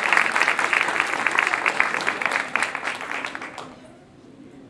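Audience applauding, many hands clapping quickly, fading away after about three seconds.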